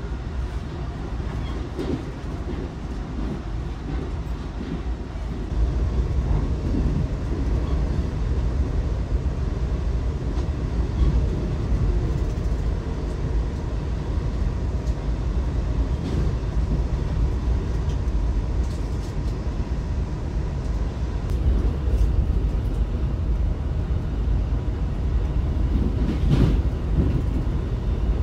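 Amtrak Acela train running, heard inside the passenger car: a steady low rumble of the wheels on the track with a few faint clicks, growing louder about five seconds in.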